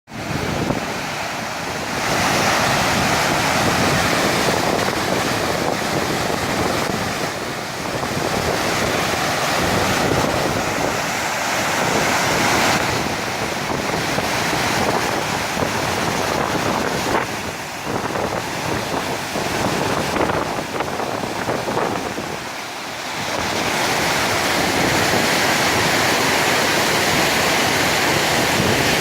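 Saluda River floodwater rushing at the dam: a steady, loud rush of water that eases a little partway through and swells again near the end.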